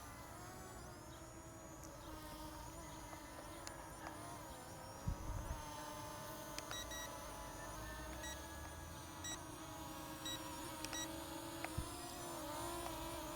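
ZLL SG107S brushless quadcopter's motors and propellers whirring in flight, their pitch wavering slightly. Partway through, a short beep repeats about once a second for several seconds.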